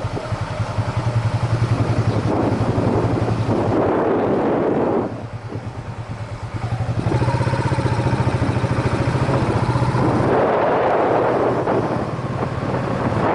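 Yamaha SRX400's single-cylinder four-stroke engine running as the motorcycle is ridden, with an even run of firing pulses. The engine note drops back about five seconds in and picks up again around seven seconds.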